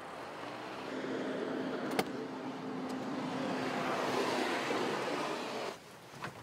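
Road traffic: a car driving past, its tyre and engine noise swelling with a steady hum, then breaking off abruptly near the end. There is a single sharp click about two seconds in.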